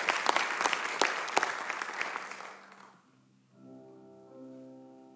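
Audience applause that fades out about three seconds in. After a short pause, a string quartet of two violins, viola and cello begins softly with held chords.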